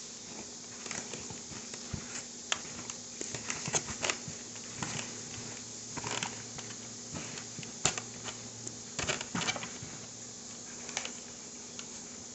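Gloved hands mixing and squeezing stiff flour-and-egg dough in a bowl: irregular soft clicks, crackles and squishes, over a faint steady hum.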